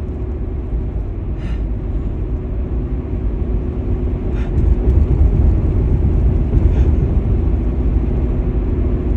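Steady low rumble of a car's engine and road noise heard from inside the cabin while driving, growing a little louder about halfway through.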